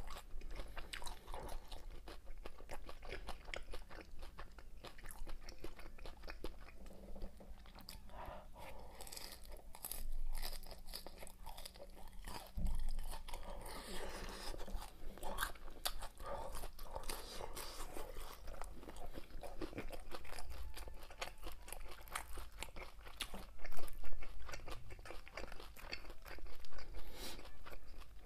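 Close-miked chewing and crunching of crispy batter-fried pork (guo bao rou), crackling steadily from bite to bite, with a few louder crunches near the end.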